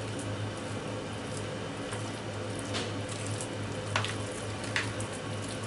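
A spoon stirring gnocchi salad in a glass dish: soft wet mixing with a few light clicks of the spoon against the glass, over a steady low hum.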